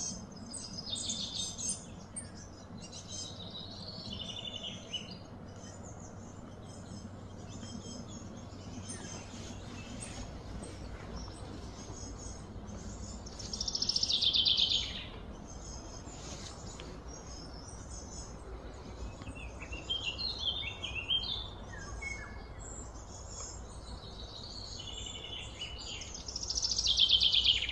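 Wild birds chirping and singing, with two louder runs of quick descending notes, one about halfway through and one near the end, over a steady low background rumble.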